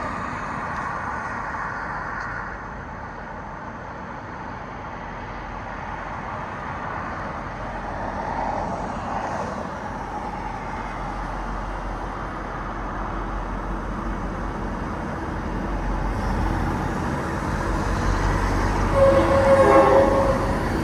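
Road traffic on a highway, cars and trucks passing in a steady rumble that grows louder over the last few seconds, with a brief pitched tone near the end.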